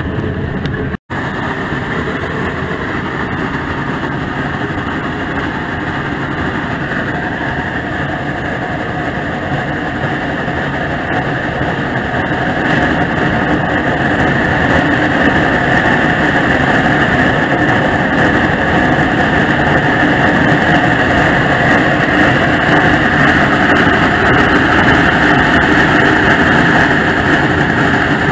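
Shay geared steam locomotive working under steam, a steady dense mix of exhaust and running gear that grows louder from about halfway through. The sound cuts out briefly about a second in.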